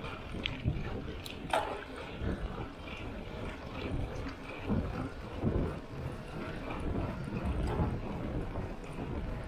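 Mountain bike riding over a wet road: tyre rumble and wind on the microphone, with a few sharp clicks and rattles from the bike.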